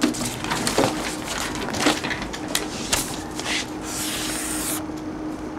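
Papers handled on a desk and a felt-tip marker scratching across paper as items on a list are crossed out, with a longer scratchy stroke about four seconds in.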